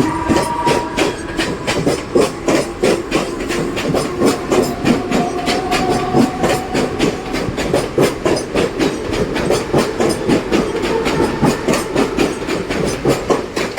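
Siemens electric multiple unit train running, its wheels clattering rapidly and repeatedly over rail joints, with a faint steady tone under the clatter.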